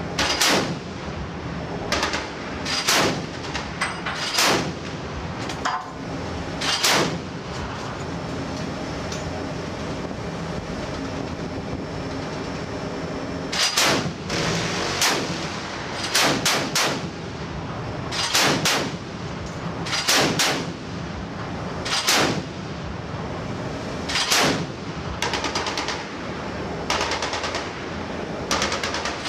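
Mk 38 25 mm chain-gun mount on a ship's deck firing single shots and short doubles, sharp reports about one to two seconds apart with a pause of several seconds about a third of the way in, over a steady background of wind and sea noise.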